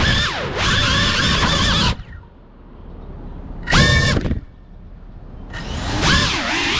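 Brushless motors of a Cinelog 35 ducted cinewhoop FPV drone whining, the pitch rising and falling with the throttle. The whine drops away about two seconds in, returns in a short sharp throttle punch near four seconds, then builds back up in the last second.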